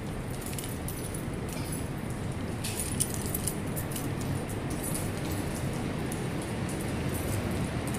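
Keys jangling in a hand, many small metallic clinks, over a steady low rumble.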